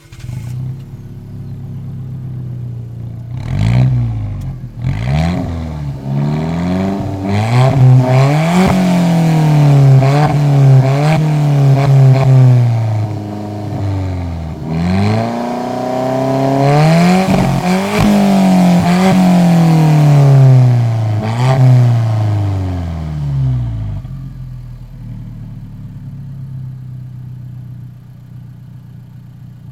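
Alfa Romeo 4C's turbocharged four-cylinder engine through a Novitec aftermarket exhaust, idling, then blipped a few times and revved up and down in two long runs before settling back to idle.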